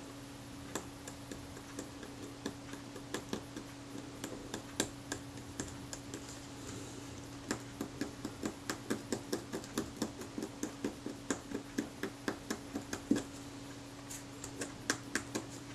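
A small pointed tool picking and scraping at the back of a camera's leather covering, digging lumps of green corrosion out of the leather. It makes a run of light, irregular clicks and scratches, thickest in the middle, over a faint steady low hum.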